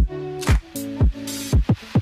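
Background electronic dance music with a steady beat of drum hits about twice a second and a synth melody. The deep bass drops out for this stretch and comes back in right at the end.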